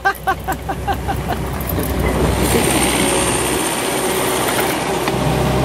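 Takeuchi compact track loader's diesel engine running as the machine drives through brush, with a thin, steady high whine over the engine. About two seconds in, a dense rush of track and crushed-brush noise swells up.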